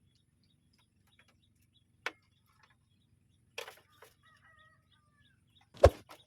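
Mostly quiet, broken by a few sharp knocks, the loudest about a second before the end, with a faint bird call in between.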